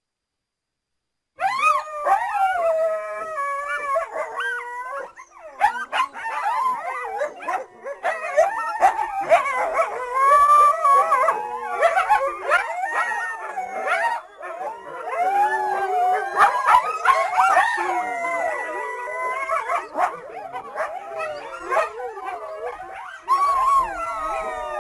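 A group of North American coyotes howling and yipping together, several wavering voices overlapping and sliding in pitch. It begins after about a second and a half of silence.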